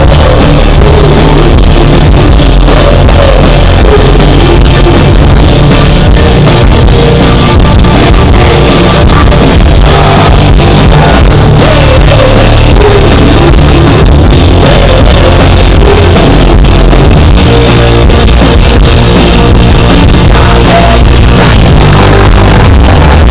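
Live rock band playing loud through a festival PA: electric guitars and drum kit. Captured on an action camera's built-in microphone, so the sound is overloaded and distorted.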